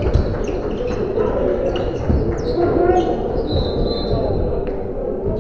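Basketball game sounds: sneakers squeaking on the court in short high chirps, with the ball bouncing and background chatter from players and bench.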